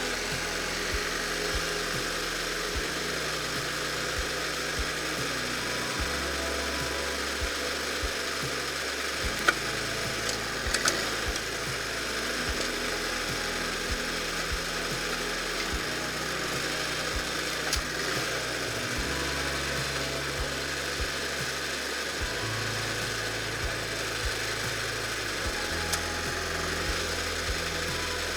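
Power sander working steadily on the metal loader parts, a continuous rasping hiss, with background music's stepping bass line underneath.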